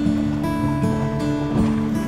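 Background music: sustained notes shifting every half second or so.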